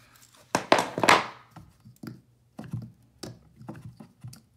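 Hands working loose fittings off a plastic push-fit pipe stub. A loud cluster of clicks with a short scraping rasp comes about a second in, then scattered light clicks and taps.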